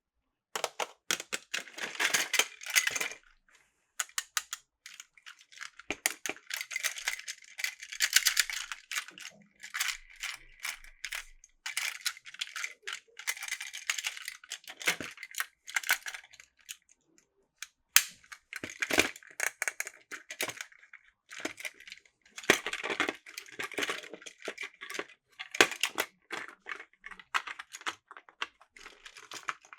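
Hard plastic toy parts clattering and clicking, most likely Plarail track and train pieces being handled, in irregular bursts with short pauses.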